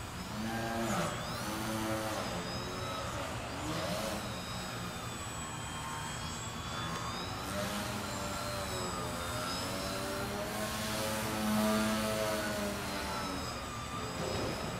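Small electric RC aerobatic plane's motor and propeller whining, the pitch rising and falling again and again as the throttle is worked through hovering and climbing manoeuvres, with the strongest bursts of power about a second in and near the end.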